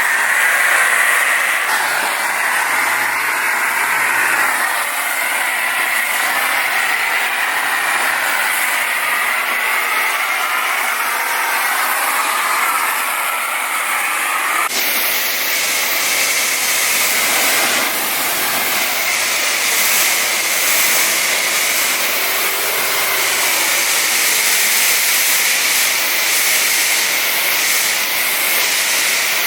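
Steady hissing spray of a high-pressure car-wash wand washing down a car, with an abrupt cut about halfway through and the spray carrying on after it.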